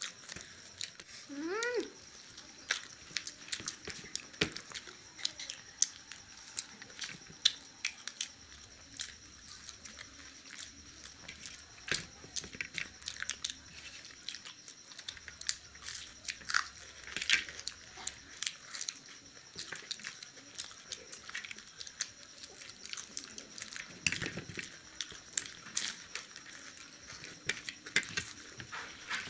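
People biting and chewing fried pakoras (battered vegetable fritters): a steady run of short, sharp mouth clicks and crunches. A brief rising vocal sound comes about two seconds in.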